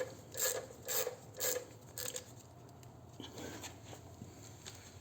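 Ratchet wrench with a 6 mm hex bit loosening the front axle pinch bolt: about five clicking strokes half a second apart, then a few fainter clicks.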